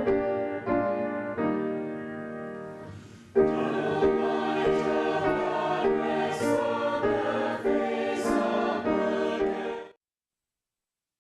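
Piano playing a hymn introduction in sustained chords, then a congregation-style choir comes in about three and a half seconds in, singing the hymn with the piano. The sound cuts off abruptly near the end.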